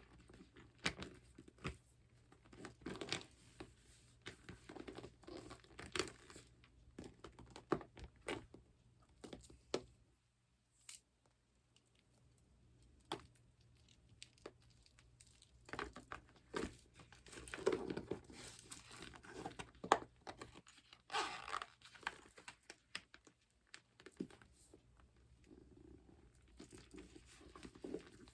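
Glossy patent leather (vinyl/plastic) handbags handled close to the microphone: sticky surfaces peel apart and crinkle in irregular crackles and rustles. The handling briefly stops about ten seconds in.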